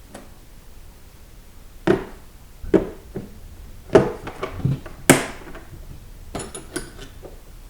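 Metal tools and sockets from a Stanley 145-piece mechanics tool set knocking and clicking against its plastic case as loose pieces are handled: about eight separate clacks, one with a brief scrape about five seconds in.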